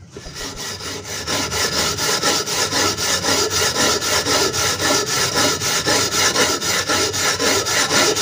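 Steel-wool scourer scrubbing a wet, soapy metal baking pan in quick, even back-and-forth strokes, a rhythmic scratchy scraping that builds up over the first second.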